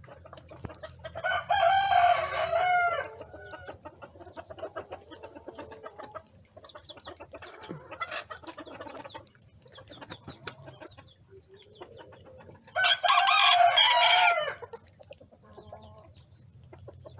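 Bantam rooster crowing twice, once about a second in and again near the end, each crow a loud call of a second and a half or so. Between the crows the hens cluck softly.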